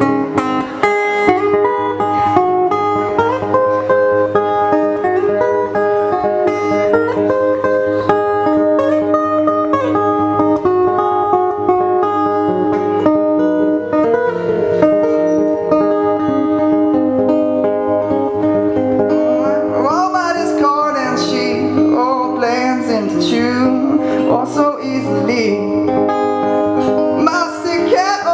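Acoustic guitar playing an instrumental passage of a live song, a steady run of picked notes and chords. From about twenty seconds in, a male voice sings wordlessly over the guitar.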